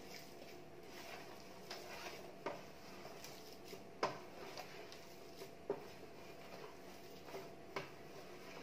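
Hands kneading pearl millet (bajra) flour dough in a stainless steel plate: faint scraping and pressing, with a few light knocks against the steel, the loudest about four seconds in.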